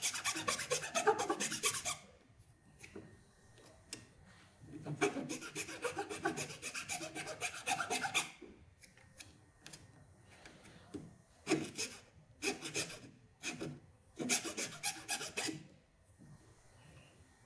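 Flat hand file rasping small moulded plastic barbs off the plastic grip tube on a motorcycle handlebar. It goes in several bursts of quick back-and-forth strokes with short pauses between.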